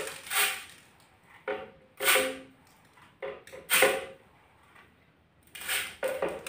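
Raw rice poured in small scoops into a plastic blender jar, a short rattling hiss of grains with each scoop, about seven in all with pauses between.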